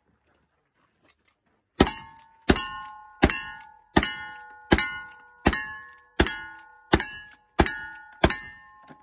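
Ten rapid rifle shots from a lever-action cowboy rifle, a little under a second apart, each followed by the ringing of a struck steel target.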